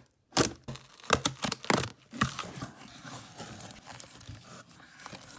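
Packing tape on a cardboard box being slit with a blade, a few sharp rips, followed by crinkling and rustling of packaging as a plastic slime container is unwrapped.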